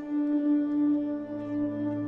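Slow ambient background music: held drone notes with a lower note coming in a little over half a second in.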